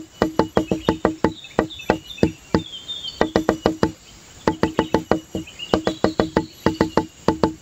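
Rapid hollow knocks, about four a second, each with a short low ring and a couple of brief pauses, over fainter high chirping.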